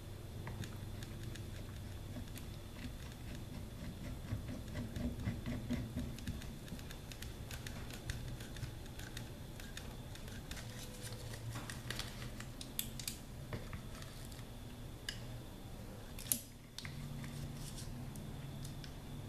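Light clicks and scraping of a hand clamp being tightened onto a rifle's freshly epoxied Picatinny rail and of pliers on the receiver, with one sharper click about three quarters of the way through, over a steady low hum.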